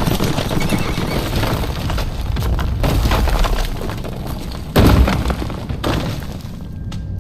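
Sound-effect crashing of rock and debris coming down, a dense rumbling clatter with heavy impacts about three and five seconds in, dying away near the end.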